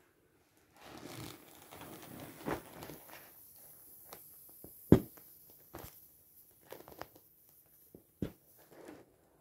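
Vinyl of an inflatable pool toy being handled and pierced with a metal pin: rubbing and rustling for the first few seconds, then sharp taps, the loudest about five seconds in. A faint steady hiss of air escapes through the punctures.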